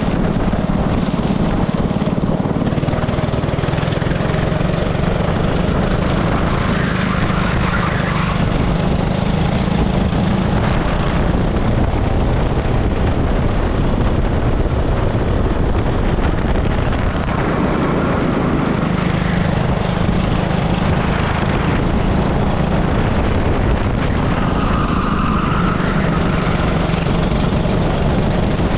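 18 hp super kart engine running continuously, heard from onboard the kart. Its note drops for several seconds around the middle and then picks up again.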